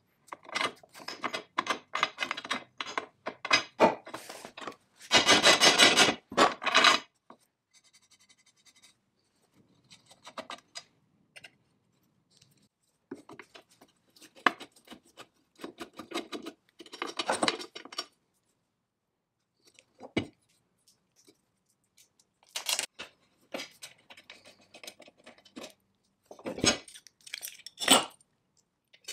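Steel fittings clinking and scraping against a cast-iron machine base as they are fitted by hand: irregular short clicks and rubs with pauses, a louder, denser scraping stretch about five seconds in, and a screwdriver working a slotted screw.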